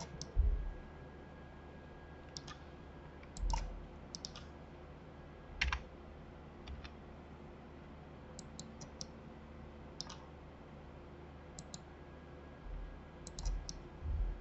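Computer keyboard and mouse clicks while working in a 3D modelling program: scattered sharp taps, mostly in quick clusters of two to four, a few with a duller thump under them.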